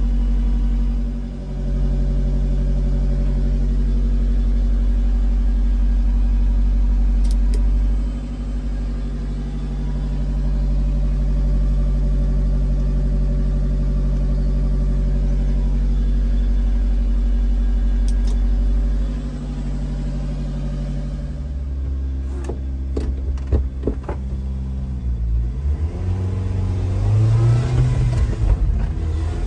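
1994 Subaru Sambar truck's supercharged four-cylinder engine idling steadily, heard from inside the cab. About twenty seconds in the note changes, and near the end the truck pulls away with the engine rising in pitch.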